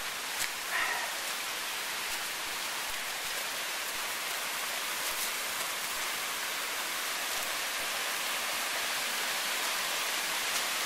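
Waterfall rushing with a steady hiss of falling water, slowly growing louder.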